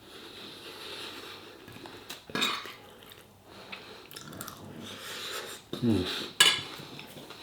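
A person eating a chilli-hot dish: quiet chewing and breathing, a breathy exhale, a short low "mm" from the throat about six seconds in, and a sharp click of cutlery on the plate just after it.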